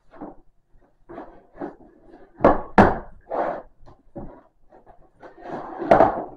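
A hard plastic tool case being slid out of a cardboard box: scraping and rustling handling noise with several sharp knocks, the loudest a pair about two and a half seconds in and another near the end.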